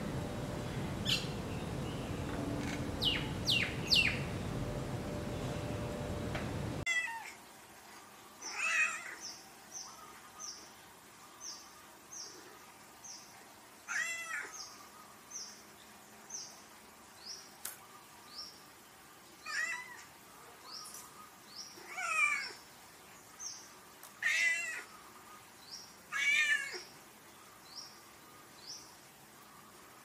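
A few short, high bird chirps over a steady hiss, then an abrupt cut at about seven seconds to a domestic cat meowing six times at irregular intervals. Behind the meows runs a fast, even series of short high chirps.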